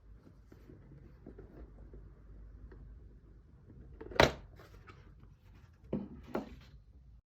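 Cardboard jigsaw puzzle being handled: soft rustling, with a sharp tap about four seconds in and two lighter knocks about two seconds later.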